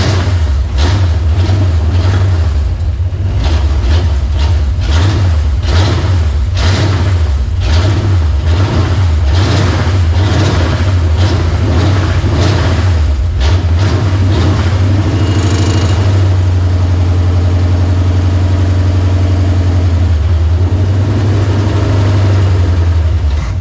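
Freshly started Chevy 350 V8 running on gasoline poured into its carburetor, uneven and stumbling at first, then steadier, before dying out at the very end. It is running flooded from the poured fuel.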